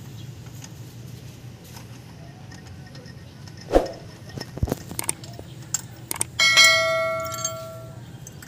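A couple of sharp metal knocks of a spark plug socket against the engine, then the socket is set down on the engine with a clink and rings like a small bell for about a second and a half before dying away.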